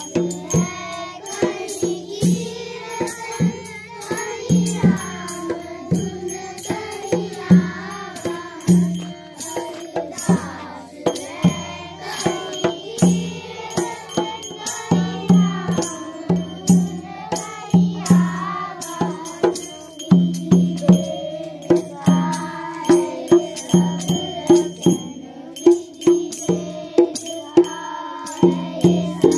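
A group of schoolchildren singing a prayer in unison, with a drum beating a steady rhythm and short sharp percussion strikes throughout.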